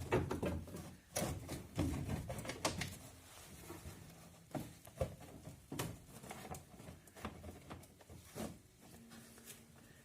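Irregular clicks, knocks and clatter of a 12 mm wrench working a bolt on a car's plastic windscreen-washer reservoir, busiest in the first few seconds and sparser after.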